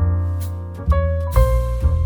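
Instrumental jazz-style music: piano notes over a sustained bass line, with light drum and cymbal strokes.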